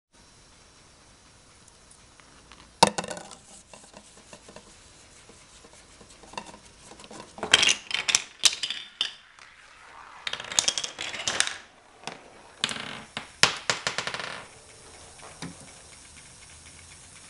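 A homemade marble chain-reaction machine running, with a sharp clack about three seconds in. Then come three bursts of rapid clattering as a row of small wooden blocks topples like dominoes and marbles knock and roll along plastic toy-train track.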